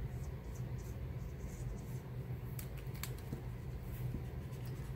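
Pencil scratching on drawing paper in short, light strokes, with a couple of sharper clicks near the middle, over a steady low hum.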